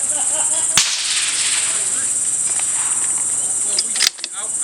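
Two suppressed center-fire rifle shots, one about a second in and one near the end, each a sharp crack. Under them runs a steady high-pitched drone of insects.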